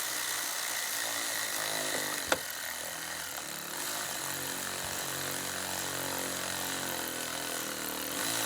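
Cordless power driver running steadily, turning the 7 mm bolt that draws a wiring connector down into a Ford Super Duty's battery junction box. There is a sharp click about two seconds in, which fits the connector being pulled in and seating.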